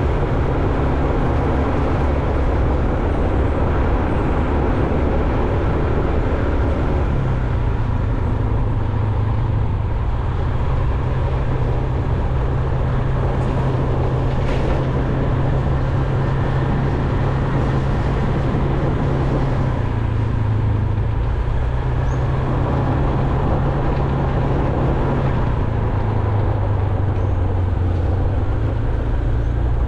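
Motor vehicle on the move: a steady engine hum with road and wind noise, the engine note shifting pitch a few times.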